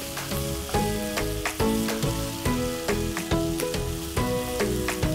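Wooden spatula stirring through chopped onion and tomato sautéing in a non-stick kadai, with a steady sizzle and repeated knocks and scrapes of the spatula against the pan. Background music with held notes plays underneath.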